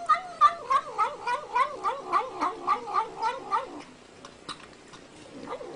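A pet animal making a rapid run of about a dozen short, wavering, pitched calls, roughly three or four a second, that stops about three and a half seconds in.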